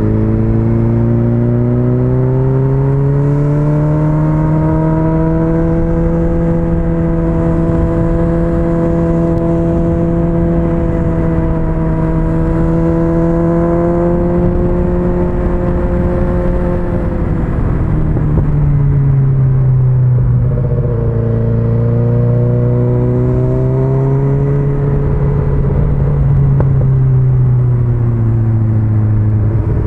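Sport-touring motorcycle engine running at speed, heard from the bike with wind rush underneath. Its pitch climbs a few seconds in and holds steady for a long stretch. It drops off about two-thirds of the way through, rises again, and falls near the end.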